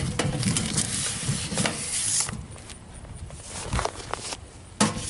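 Rustling and knocking of paper mail being pulled out of a metal curbside mailbox, busiest in the first two seconds, then a few scattered clicks and a sharp knock near the end.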